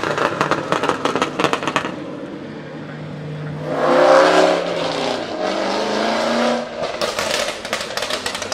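Aston Martin Vantage AMR Pro exhaust crackling and popping. About four seconds in, the engine rises in revs to its loudest, then runs on, and a second round of crackles comes near the end.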